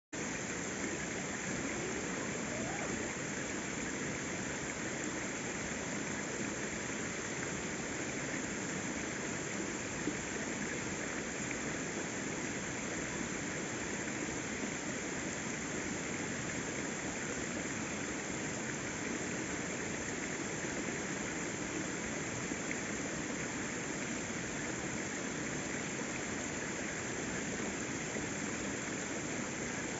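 Waterfall: a steady, unbroken rush of falling water, with one small tick about ten seconds in.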